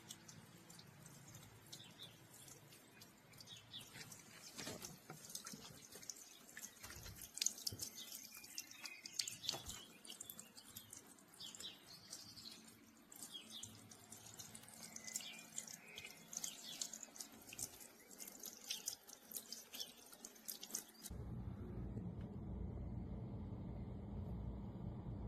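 Water splashing and trickling from a small solar bird-bath fountain, with many small drips and spatters. About four-fifths of the way in it cuts off and a steady low rumble takes over.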